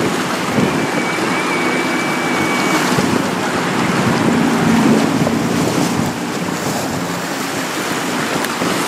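Wind buffeting the microphone over choppy water, with waves washing and a small motorboat's engine running, swelling about halfway in.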